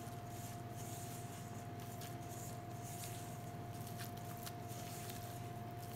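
Thick cake batter being hand-stirred with a wooden-handled utensil in a stainless steel bowl: faint, rhythmic swishing about twice a second, with a few light clicks about four seconds in. A steady electrical hum runs underneath.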